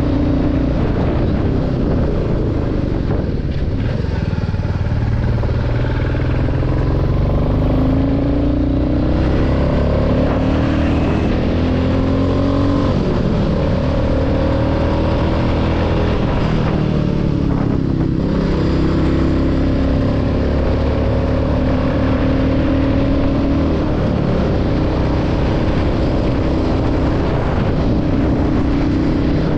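Royal Enfield Classic 350's single-cylinder engine running under way, with about 35,000 km on it. Its pitch climbs in several steps as it pulls through the gears, drops briefly just past the middle, then holds fairly steady.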